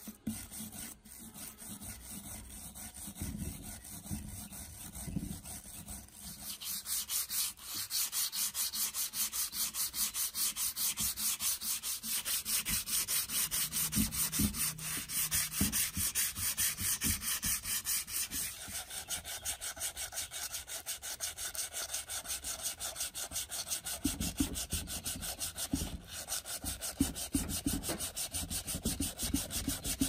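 Sandpaper scrubbed rapidly back and forth by hand over the rusty metal motor housing of an old ceiling fan, in fast even strokes, several a second. The strokes get louder after about seven seconds.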